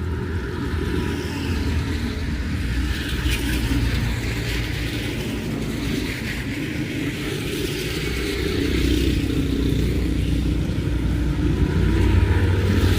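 Motor vehicles, cars and motorcycles, running past on a rain-soaked street, with the hiss of rain and wet road behind them; the engine sound swells about nine seconds in and again near the end.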